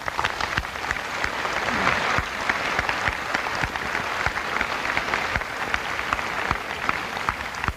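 Audience applauding: many hands clapping together, starting suddenly and tailing off a little near the end.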